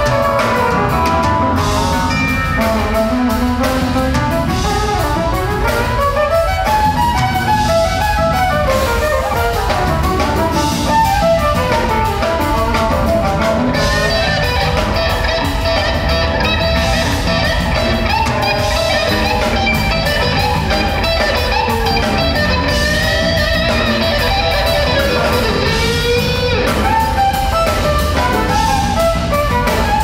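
Live jazz-rock fusion band playing loudly: fast electric guitar runs that climb and fall over drum kit and bass.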